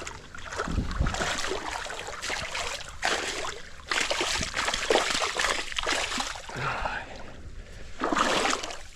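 A hooked northern pike thrashing and splashing at the water's surface as it is reeled in. There are several bursts of splashing, the loudest about halfway through and near the end, over the steady rush of the creek.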